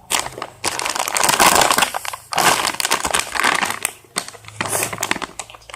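Plastic packaging being handled close to the microphone, crinkling in several bursts with short pauses between them.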